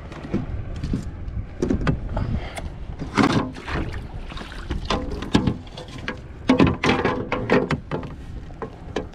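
Irregular knocks, taps and rattles against a plastic kayak deck and its fittings while a freshly caught largemouth bass is handled and laid on a plastic measuring board, over a low steady rumble. The loudest knocks come about a third of the way in and again about three quarters through.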